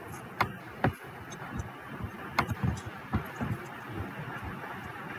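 A woman and a dog moving across a hard floor: a few sharp clicks and soft thumps of steps over steady room noise, heard over a video-call connection.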